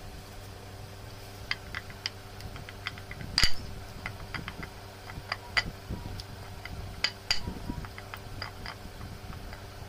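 Rolling pin tapping and clicking against a rolling board as dough is rolled out: irregular small knocks, the loudest about three and a half seconds in and a pair just after seven seconds. A steady low hum runs underneath.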